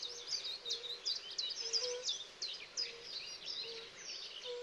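Spring birdsong in a wetland forest: many small birds chirping and trilling quickly at once, with a short low call repeating about once a second underneath.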